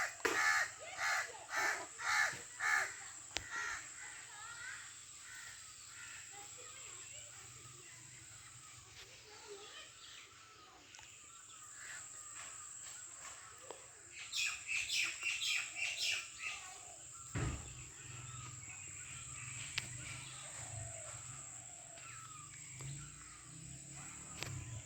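Crows cawing in two runs of short, rapid caws, one at the start and one about halfway through, with small birds chirping faintly in between.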